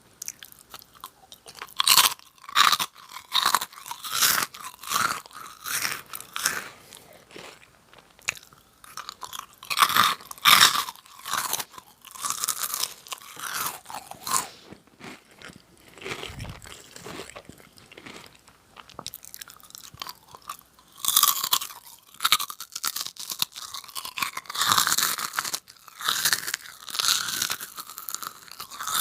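Close-miked crunching and chewing of Jagalchi crackers, a crisp wheat snack. Irregular sharp crunches come in clusters, with a softer stretch of chewing in the middle.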